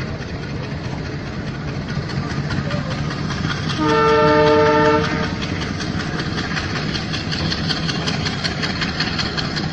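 WDP4 diesel locomotive running as it rolls slowly forward. It sounds a multi-tone horn blast of about a second and a half around four seconds in. Rapid clicking of the wheels on the rails builds near the end.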